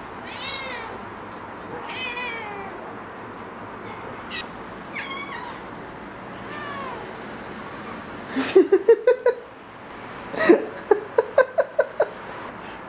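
House cats meowing: several separate meows that rise and fall in pitch, then, past the middle, two fast runs of short, loud pulsing calls, about five or six a second.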